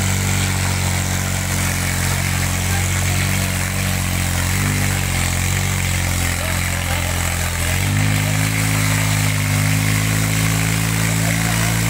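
Tractor diesel engine running steadily under power, its pitch stepping up slightly about eight seconds in.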